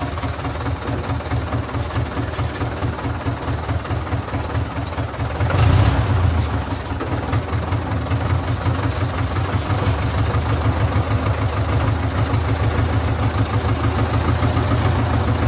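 Tractor diesel engine running steadily, heard from inside the cab, with a low pulsing rumble. It swells briefly about six seconds in and stays a little louder from about ten seconds on.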